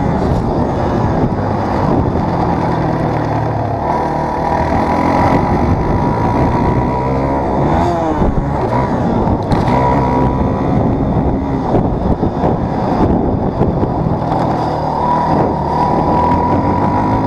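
Dirt bike engine being ridden hard, revving up and dropping back again and again as the rider works the throttle and gears, its pitch rising and falling throughout.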